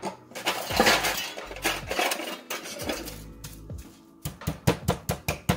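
Plastic wrap rustling as it is handled over raw chicken breasts. Then, from about four seconds in, a meat mallet pounds the wrapped chicken flat on a cutting board in quick, even strikes, about five a second.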